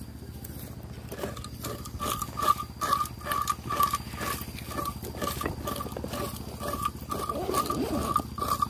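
Metal detector signalling a buried target with a repeated short beep, about two to three beeps a second, starting about a second in, with sharp knocks and clicks alongside.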